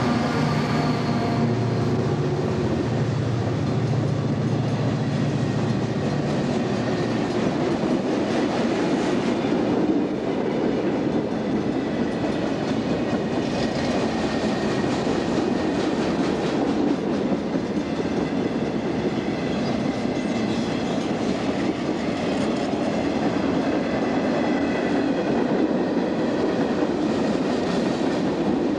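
Freight train passing close by. For the first six seconds or so the steady drone of the lead diesel locomotive's engine dominates; after that comes the continuous rolling noise of the freight cars' wheels on the rails, with faint high whines.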